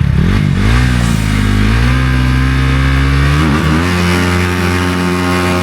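Dirt bike engine running under throttle, its pitch falling and rising again about a second in and once more near the middle, then holding steady at a higher pitch.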